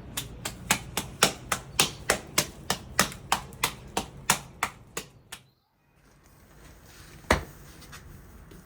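A steady run of sharp knocks, about three a second, dying away after about five seconds, then a brief drop to silence and one more single knock.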